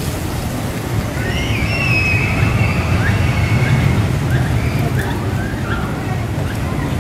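Steady low rumble of wind buffeting the microphone. Over it, a bird gives a long high whistled call from about a second in, then a few short chirps.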